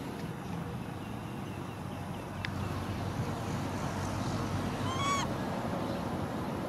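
Steady low outdoor rumble of wind noise, with a few faint high chirps and one short pitched call, rising then falling, about five seconds in.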